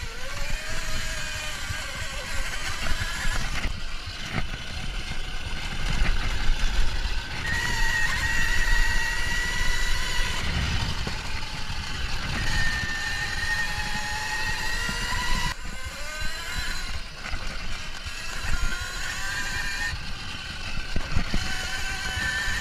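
Kuberg Ranger electric dirt bike's motor whining at speed, its pitch rising and falling as the rider speeds up and slows, over a steady low rumble of wind and the bumpy trail.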